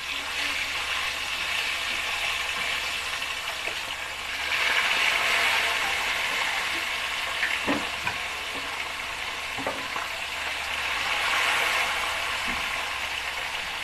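Tilapia pieces sizzling in hot cooking oil in a wok as they go in. The sizzle starts at once, swells about four seconds in and again near the end, with a few light clicks in between.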